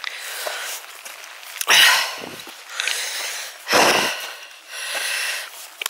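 A hiker breathing hard, three heavy breaths a second or so apart, over a steady hiss of rain on an umbrella.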